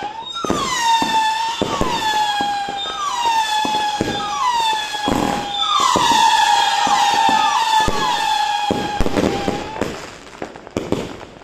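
100-shot 'howling wolf' firework cake firing, each shot going up with a shrill howling whistle that dips in pitch at its start and then holds. The whistles overlap, a new one every half second to a second, with the pops of the bursts among them. The whistling stops about ten seconds in, leaving a few scattered cracks.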